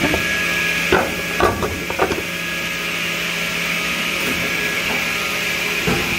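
Automatic edge banding machine running with a steady hum as a panel is fed through it. Several sharp clacks come about one to two seconds in, and another near the end.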